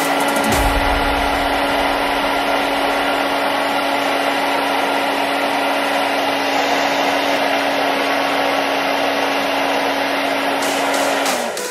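Electric fan motor running steadily, a constant hum over a rush of blown air, winding down near the end.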